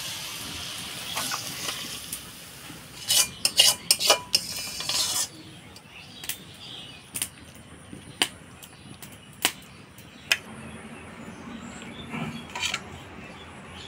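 Metal utensil scraping and clinking against a cooking pan as the finished fish chorchori is taken off the heat, over a faint sizzle from the pan in the first few seconds. A quick run of clinks comes about three to five seconds in, then single clinks every second or two.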